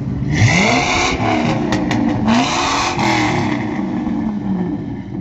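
Ford F-250's 6.8-litre V10 revved twice through a Flowmaster 40 series muffler (single 3-inch in, dual 2.5-inch out, dual tailpipes). Each rev rises and falls in pitch, and the engine settles back to idle near the end.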